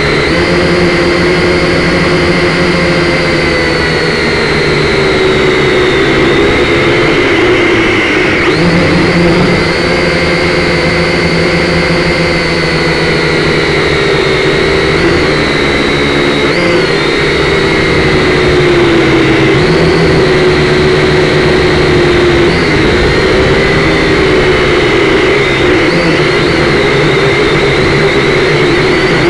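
Syma X5C quadcopter's small brushed electric motors and propellers whining, heard close up through the drone's own onboard camera. The pitch wavers up and down every few seconds as the throttle and sticks are worked.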